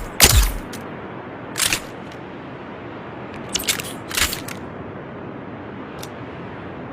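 Dart rifle sound effect: one sharp shot with a low thump just after the start, then several quieter, shorter cracks and clicks spaced out over the next few seconds, above a steady hiss.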